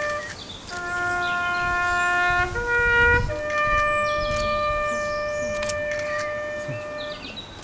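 A solo trumpet playing a slow bugle call in long held notes: a low note about a second in, a short higher one near three seconds, then a higher note held for about four seconds before it fades. Faint high chirps sound above it.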